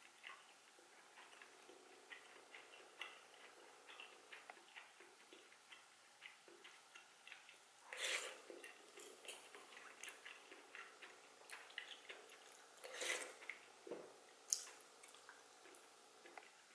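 Close-miked eating sounds: soft chewing and small wet mouth clicks throughout, with louder slurps of marsh snail soup broth from a spoon about 8 and 13 seconds in, and a sharp click just after.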